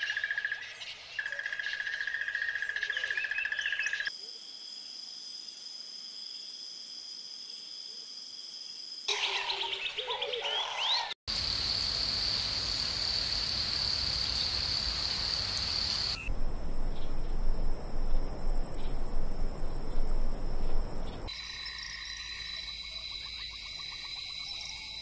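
Wildlife ambience that switches abruptly every few seconds between segments: bird chirps and trills, then steady high-pitched chorusing from calling animals such as insects, with a louder stretch of steady drone and hiss in the middle.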